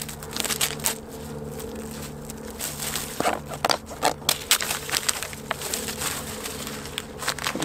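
Clear plastic wrapping and its printed label being peeled off a thin plastic chopping board and crumpled in the hand: irregular crinkling and crackling.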